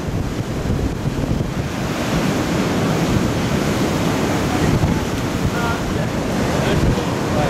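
Strong wind buffeting the microphone over the steady rush of heavy surf breaking on the shore.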